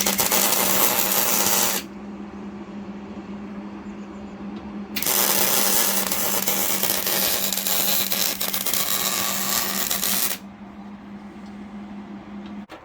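Welding arc crackling on an exhaust pipe in two runs, a short one of about two seconds and then a longer one of about five seconds. A steady low hum from the welder sounds underneath throughout.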